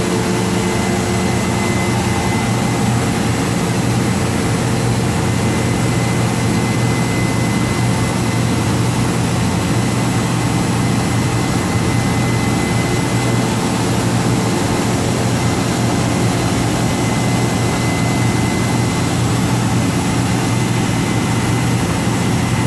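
A 10 hp Rietschle VC 303 oil-lubricated rotary vane vacuum pump running with a steady low hum and a thin, steady high tone above it.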